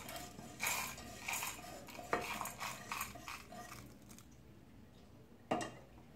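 Dry-roasted whole spices (black peppercorns, cumin, coriander seeds and dried red chillies) rattling and scraping as they are tipped and pushed from a non-stick pan into a steel mixer-grinder jar, seeds pattering against the metal in short scattered clicks. The rattling thins out after about four seconds, and a single knock comes near the end.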